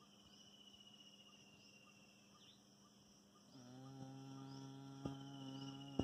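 Faint chirring of insects, with a steady low hum that grows louder about three and a half seconds in, and a single sharp click about five seconds in.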